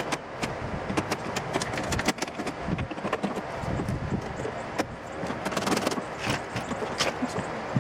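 Irregular clicks, taps and rattles of hand work on a pickup truck's door handle and latch linkage, metal and plastic parts knocking together.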